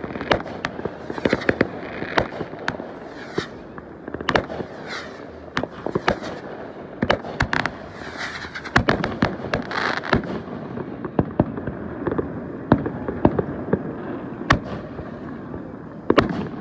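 Fireworks going off in a dense run of sharp bangs and pops, one after another, over a steady noisy background.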